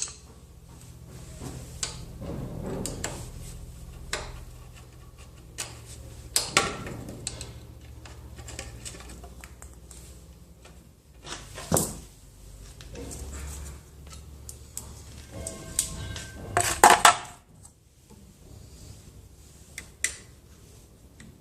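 Metal tools and parts clinking and knocking during motorcycle chain removal work: scattered sharp clicks and clanks with pauses between them, with the loudest cluster of clanks about three-quarters of the way through.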